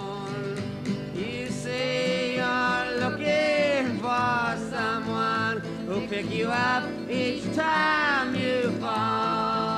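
A woman and a man singing a folk song together at one microphone, over guitar, in an old live concert recording.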